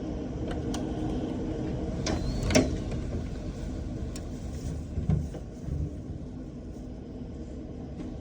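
Strong storm wind rumbling steadily against a house, with scattered knocks and thumps from the building. The sharpest knock comes about two and a half seconds in.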